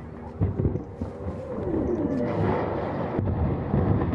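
Blasted industrial chimney giving way: low rumbling with a few dull thumps about half a second in, the noise building toward the end.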